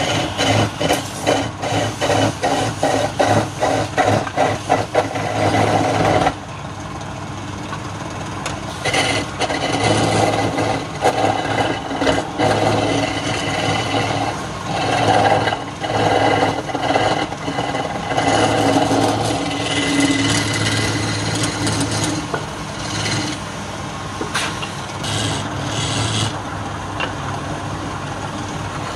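Wood lathe spinning a wooden workpiece while a hand-held chisel cuts into it, shavings scraping off. The cutting comes as rapid even strokes at first, then drops suddenly about six seconds in to steadier scraping over a steady hum, with louder bursts of cutting now and then.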